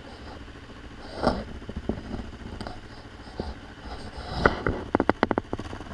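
Motorcycle engine running at low revs, with a run of sharp clattering knocks in the last second and a half.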